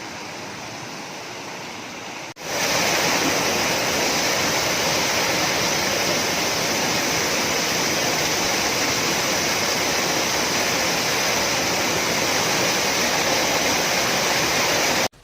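Steady rushing water. It grows much louder after an abrupt cut about two seconds in and stops abruptly near the end.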